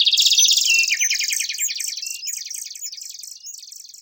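Birds chirping in fast, high trills that fade away steadily.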